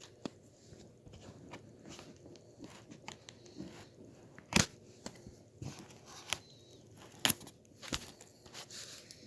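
Handling of a toy set's packaging: scattered crinkles, rustles and clicks, with two sharp snaps about four and a half and seven seconds in.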